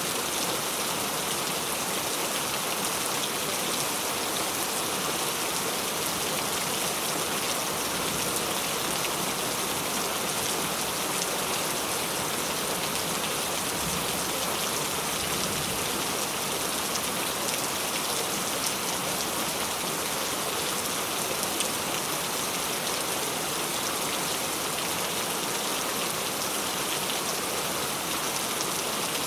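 Steady rain falling, an even hiss with the fine patter of many drops.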